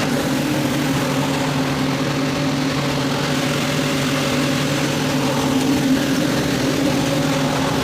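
Industrial oil-injected rotary screw air compressor running steadily: a constant low hum with a rushing hiss over it.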